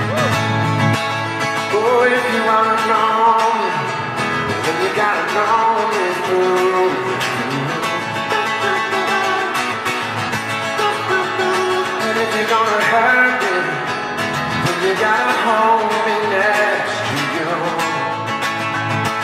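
Acoustic guitar played solo, strummed and picked, with a voice singing melodic phrases over it: a live song performance.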